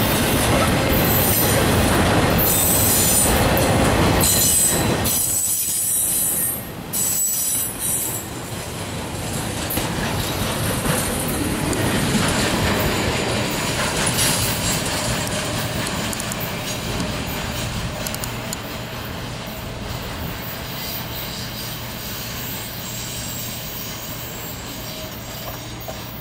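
Intermodal freight train's container well cars rolling past close by, steel wheels rumbling and clacking on the rails with high-pitched wheel squeal. About six seconds in the sound drops off suddenly, and the train is then heard more quietly and from farther off, fading as it rolls away.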